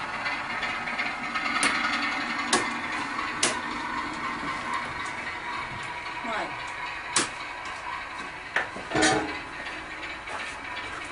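Small electric model train running on a layout: a steady whirr of its motor and gears with background chatter, broken by several sharp clicks.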